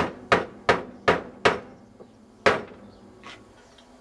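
Metal barrel of an air hammer knocked end-down on a wooden tabletop to jar loose a piston stuck in black greasy sludge: five quick knocks, about three a second, then another after a short pause and a lighter one near the end.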